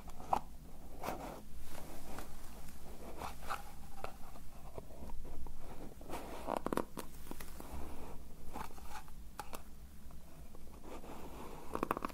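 Irregular scratching and rubbing handling sounds, with small sharp clicks in between.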